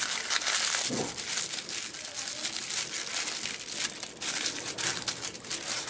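Aluminium foil crinkling and crackling with many small irregular crackles as its edges are folded over and creased down by hand into a closed packet.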